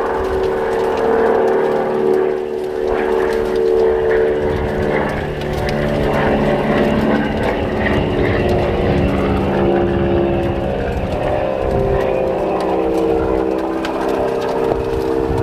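Quadcopter drone's propellers buzzing steadily, several close pitches drifting slightly up and down.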